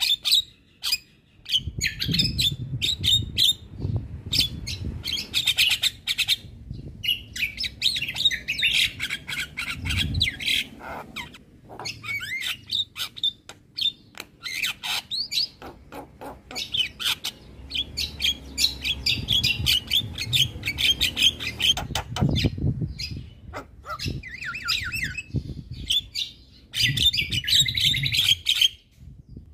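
Javan myna (jalak kebo) singing in full voice: bursts of rapid clicking chatter, rattles and short gliding whistles, broken by brief pauses.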